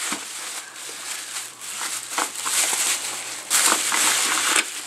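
Plastic bubble wrap crinkling and rustling as hands handle it and pull it open, with a few sharp crackles, growing louder and busier about three and a half seconds in.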